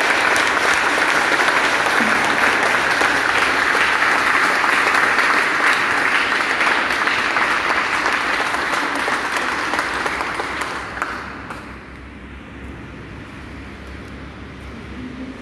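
Church congregation applauding after the closing "viva" cheers of a sermon. The clapping dies away about eleven seconds in.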